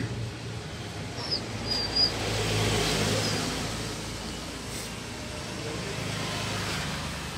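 Steady road-traffic noise, swelling about three seconds in as a vehicle passes, with a few brief high chirps about a second in.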